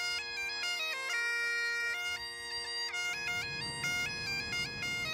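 Bagpipe music: steady drones held under a chanter melody that moves in quick steps from note to note.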